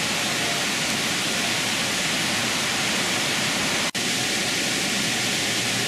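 Steady rushing hiss of a small indoor waterfall, with a brief dropout about four seconds in.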